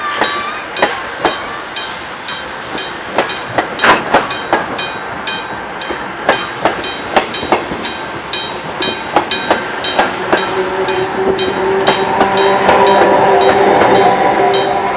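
Old-style electric level-crossing bell ringing in even strikes, about two a second. From about ten seconds in, a train passing the crossing grows louder under it, with clickety-clack and steady tones.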